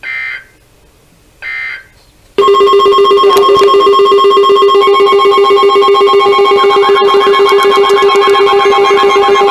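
Emergency weather alert broadcast: two short buzzy digital data bursts of the alert header, then about two and a half seconds in a loud, steady alert tone sounds and holds. From about six seconds in, warbling tones are layered over it.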